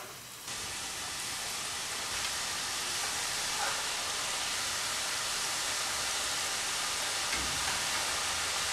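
Garlic murukku deep-frying in hot oil in a wok: a steady sizzle that starts sharply about half a second in as the first spiral goes into the oil, and grows a little as more are added.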